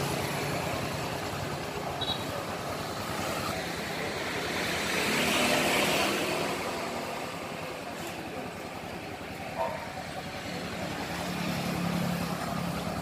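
Street traffic with motorbikes going past on the road, the loudest swelling by about halfway through.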